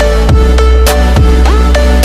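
Electronic music with a steady beat and deep bass that slides in pitch, laid over the footage.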